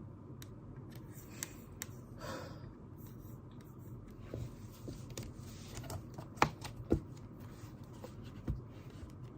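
Small handling sounds at a study desk over a low steady room hum: scattered light clicks, a brief scratching rustle about two seconds in, and a few sharper taps in the second half.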